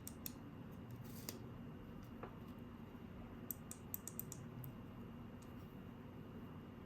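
Faint small plastic clicks and taps from handling the opened mouse's parts, with a quick run of several ticks about three and a half seconds in, over a low steady hum.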